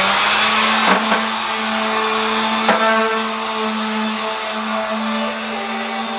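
Handheld electric detail sander running with a steady hum and hiss as its pad sands the glossy finish on a wooden bench, with two brief knocks about one and three seconds in.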